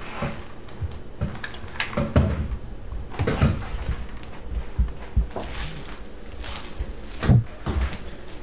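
Handling noises: a string of irregular knocks and thumps as fruit and onions are picked up and set down on a wooden table, the loudest thump about seven seconds in.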